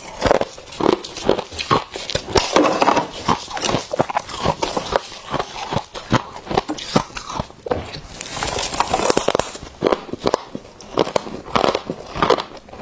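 Close-miked crunching of freezer frost being bitten and chewed: rapid, irregular, crisp crunches. About eight seconds in there is a brief hissing, granular rustle of frost crumbling.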